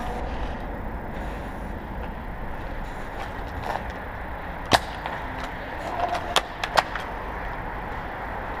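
King Arms R93 airsoft sniper rifle with an HPA conversion firing once with a sharp snap about halfway through, followed about a second and a half later by three quick clicks, typical of the bolt being cycled. Steady background hiss underneath.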